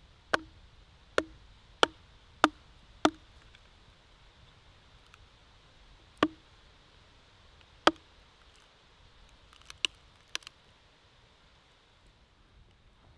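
A hatchet chopping into wood on a log to split kindling: five sharp chops in quick succession, two more a few seconds later, then a few lighter knocks near the end.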